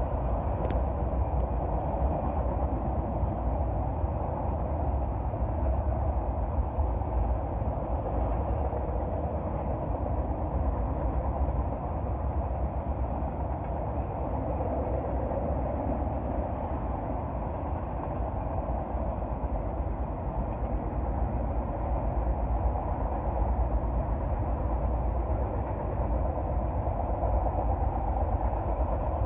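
Loaded pipe freight train's cars rolling past at a distance, a steady rumble without distinct clicks or horn.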